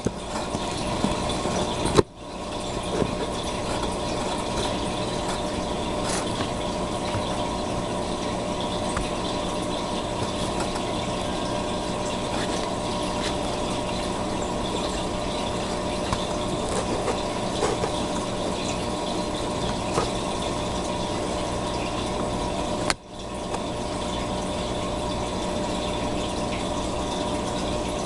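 Steady mechanical hum with an even rushing noise under it, broken by two short dips, about two seconds in and near the end.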